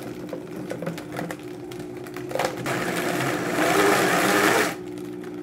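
Vitamix blender motor running, grinding raw boneless chicken thighs into ground meat while the tamper pushes the chunks down into the blades. It gets louder and harsher for about two seconds in the middle, then settles back to a steady hum.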